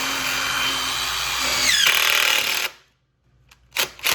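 Power drill driving screws into wood: the motor runs steadily with a whine, rises in pitch briefly, and stops about two and a half seconds in. Near the end come four short bursts from the drill.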